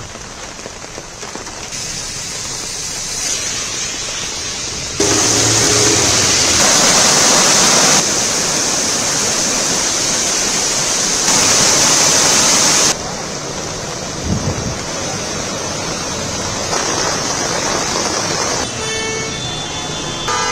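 Heavy rain pouring down, a steady hiss that jumps louder from about five seconds in until about thirteen seconds in. Near the end, vehicle horns honk in traffic.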